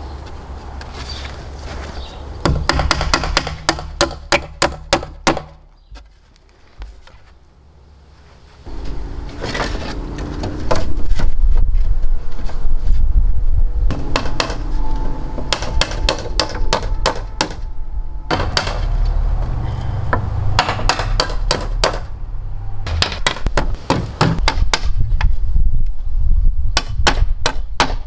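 Hammering in runs of quick, even blows, about four a second, with pauses between the runs.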